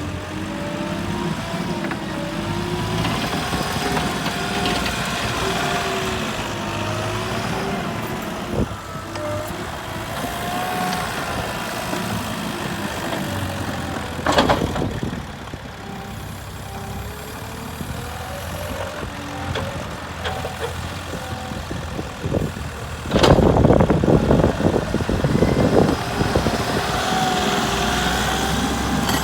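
JCB 150T tracked skid steer loader's diesel engine running, its pitch wavering slightly. There is a brief loud burst of noise about halfway through and a louder, noisy stretch of a few seconds about four-fifths of the way in.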